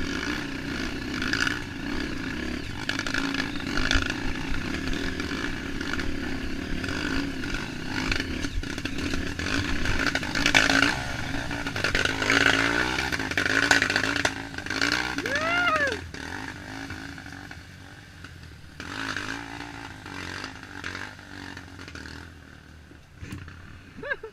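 Dirt bike engine running and revving under load on a rough trail, with rattling and scraping over the ground; the engine sound drops away about 16 seconds in.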